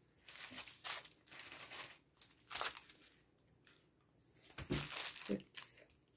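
Paper and plastic rustling and crinkling in several bursts as a rolled diamond painting canvas and its paper sheets are handled and unfolded, with a couple of soft thumps a little before the end.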